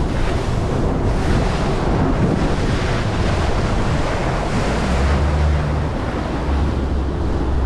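Heavy wind buffeting the microphone and waves slapping against a bass boat's hull as it moves across choppy lake water. About five seconds in, a low steady motor hum joins it.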